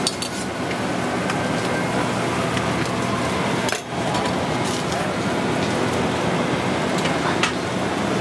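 Steady kitchen background noise with a few light metallic clinks of gloved hands and utensils against a stainless steel pan as smoked meat is handled.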